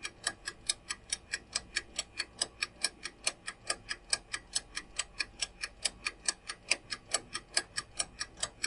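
Clock-tick sound effect of a quiz countdown timer, ticking evenly about four times a second and counting down the time left to answer.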